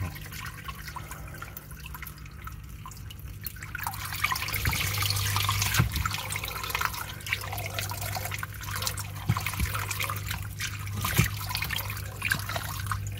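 Water splashing and gurgling as a filter outlet's jet churns against a turtle pressed over it, with a steady low hum underneath. The splashing grows louder about four seconds in.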